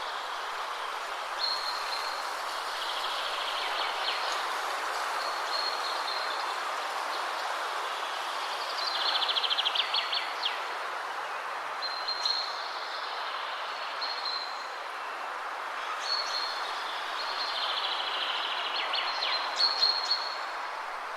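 Birds singing in short, high, repeated trills and chirps every few seconds over a steady rushing background noise.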